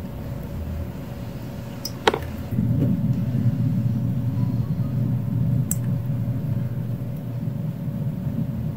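Ceramic pet water fountain running: water from its spout pours steadily into the bowl with a low rumble, over a faint steady pump hum. A sharp click comes about two seconds in, and the rumble grows louder just after.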